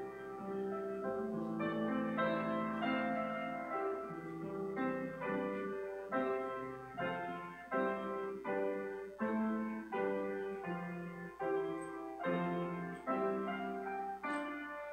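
Solo piano music: slow chords struck about once or twice a second, each left to ring and fade.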